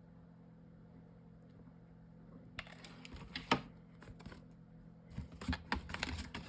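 Clicks, taps and rustles of paper and chipboard craft pieces being handled and pressed together on a work surface, starting about two and a half seconds in and growing busier near the end, over a steady low hum.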